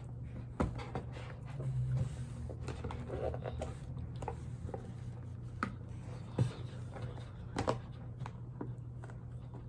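Scattered scrapes, clicks and rustles of a package being cut and worked open by hand with a makeshift tool in place of a knife, the sharpest clicks a little past halfway, over a steady low hum.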